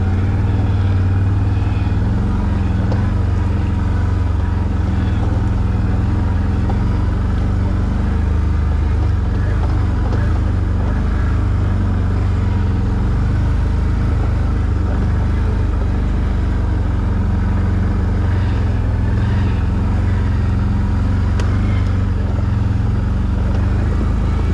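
ATV engine running steadily at low speed while the quad is ridden, a low drone that holds nearly the same pitch throughout.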